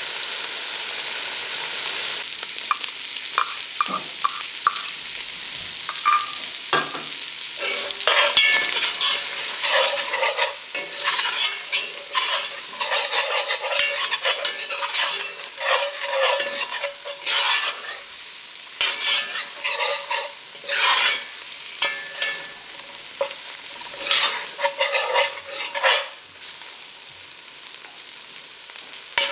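Lobster tail pieces and chopped garlic sizzling in butter in a pot. There is a steady sizzle at first, then from about eight seconds in a spatula stirs and scrapes across the pot in repeated strokes.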